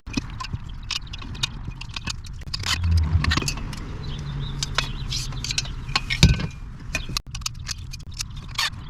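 Small metal parts of a storage rack clinking and rattling as they are handled, in irregular sharp clicks, with a low hum like a passing car in the middle.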